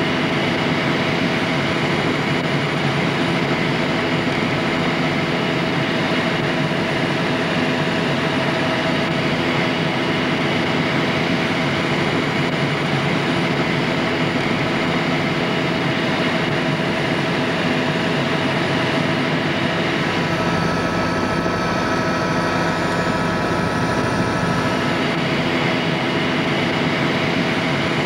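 Helicopter engine and rotor noise heard from aboard in flight: a steady drone with several steady whining tones over it, the higher tones shifting slightly about twenty seconds in.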